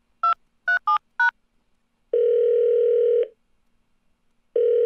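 A telephone call being placed: four quick keypad tones as digits are dialled, then the ringback tone of the line ringing at the other end, a steady tone about a second long that starts again near the end.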